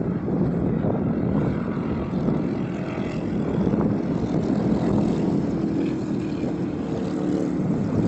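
Strong wind buffeting a phone's microphone in a steady low rumble, with highway truck traffic underneath; a faint engine drone shows in the second half.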